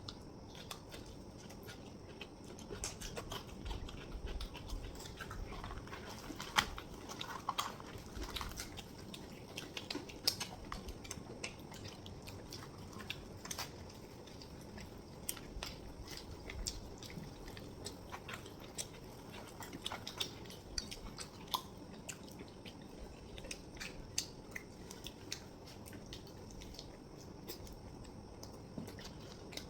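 Chewing and mouth sounds from eating chhole bhature (fried bread with spicy chickpea curry), with many small irregular wet clicks and smacks.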